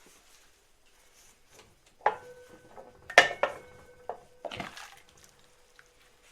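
Sterilized glass jars being handled and clinking: about five sharp knocks over a few seconds, the loudest in the middle, with a clear ringing note lingering after them.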